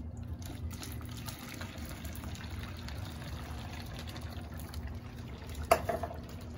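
Water poured into a plastic squeeze bottle holding dry ice, splashing and bubbling as the fog pours out. A sharp knock comes near the end.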